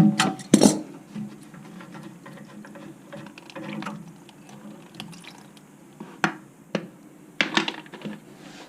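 Sharp clinks and knocks of hand tools and toilet parts being handled while taking out an old fill valve and supply line, several in the first second and another cluster near the end.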